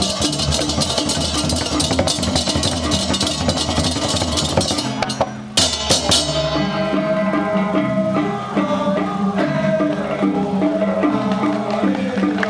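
Music with drums and percussion. It breaks off briefly about five and a half seconds in, and after a few sharp hits a section with a steady melody over a repeating bass line follows.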